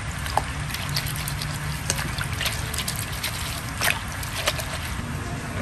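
Hands kneading and squeezing wet sương sâm leaves in a stainless steel bowl of water, with squelching, trickling and small splashes. The leaves are being crushed to release the green juice that sets into sương sâm jelly.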